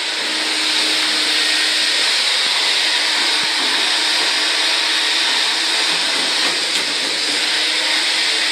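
Chimney sweep's soot vacuum running with a loud, steady rushing noise.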